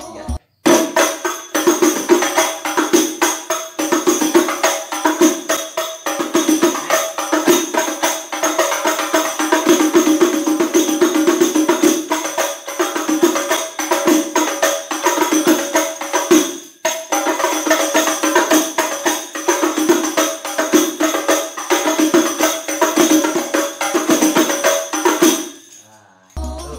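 Hadroh frame drums with metal jingles played by hand in a fast, steady rhythm, the skin strokes and the rattle of the jingles together. The playing breaks off for a moment about 17 seconds in and stops shortly before the end.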